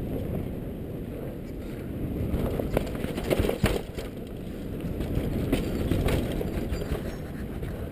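Giant Glory downhill mountain bike descending a dirt trail at speed: tyres rolling over the dirt and the bike rattling, under a steady rumble of wind on the microphone. A cluster of sharp knocks about three to four seconds in, with a few more near six seconds, as the bike hits bumps.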